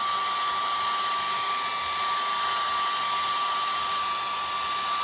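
Hair dryer blowing steadily with a high whine, drying wet acrylic paint on a canvas. It is switched off at the very end, its whine sliding down as the motor stops.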